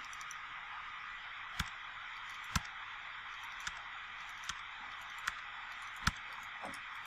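About seven sharp, separate clicks from a computer mouse and keyboard, spaced irregularly about a second apart while values are entered in a table, over a steady microphone hiss.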